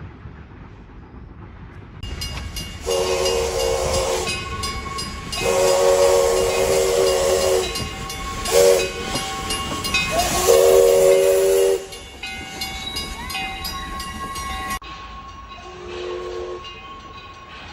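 Locomotive air horn, a multi-note chord, blowing long, long, short, long: the grade-crossing signal, over the noise of a train passing close by. After a cut, another train horn sounds more faintly, one blast followed by the start of a second near the end.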